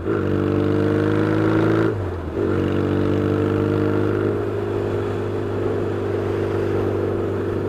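Yamaha XS650 parallel-twin motorcycle engine pulling under acceleration on the road, pitch rising, with a gear change about two seconds in, after which it pulls on steadily again.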